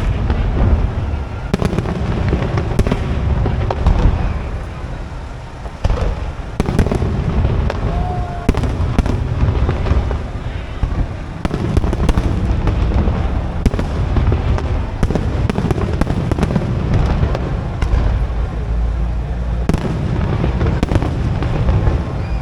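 Aerial fireworks display: shells bursting in rapid succession with sharp bangs over a continuous deep rumble of booms.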